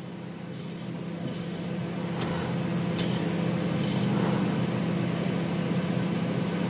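Microwave oven running with a steady hum, heating a dead compact fluorescent lamp, slowly growing louder, with two sharp clicks about two and three seconds in.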